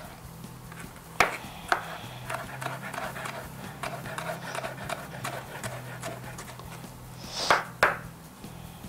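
Kitchen knife chopping green capsicum finely on a wooden cutting board: sharp knocks of the blade on the board, with quicker, lighter taps in between and a close pair of loud knocks near the end.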